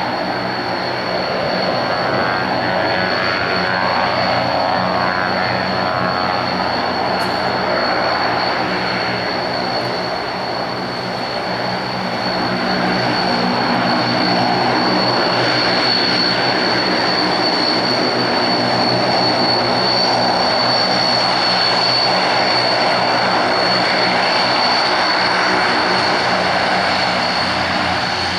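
Antonov An-32's two turboprop engines running at taxi power, a steady high whine over a propeller drone, growing louder about halfway through as the aircraft taxis nearer.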